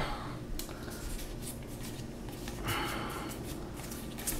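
Magic: The Gathering trading cards being flipped through by hand: a string of light card clicks and flicks, with a brief rustle of cards sliding across each other nearly three seconds in.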